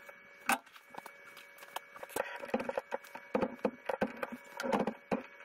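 Irregular clicks and knocks of metal parts being handled at a metal lathe as a boring bar is set up in the bore of a chucked aluminium part, with the loudest click about half a second in and a cluster of knocks near the end. A faint steady hum lies underneath.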